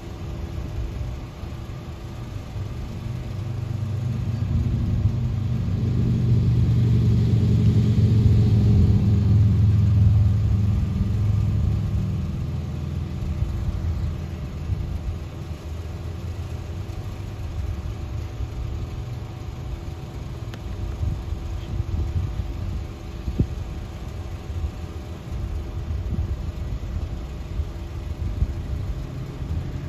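Low engine rumble with a steady hum, swelling to its loudest about six to ten seconds in and then easing back to a steadier drone.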